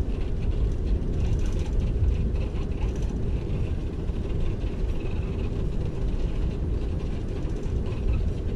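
Airliner cabin noise while taxiing after landing: a steady low rumble from the engines and the wheels on the tarmac.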